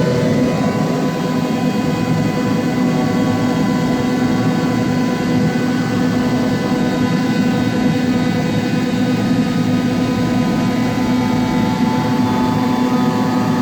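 A 5-axis CNC machine cutting: a steady loud running noise with several constant whining tones.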